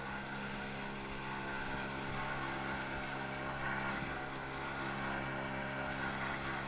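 A 1961 Hall T-bar surface lift running, giving a steady mechanical hum from its drive machinery.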